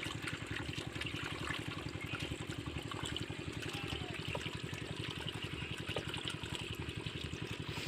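A small engine running steadily with a rapid, even beat, and water trickling alongside.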